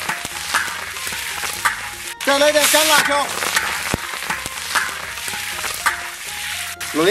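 Ginger, garlic, scallions and dried chillies sizzling in hot oil in a large wok, a steel wok spatula scraping and stirring them around the pan.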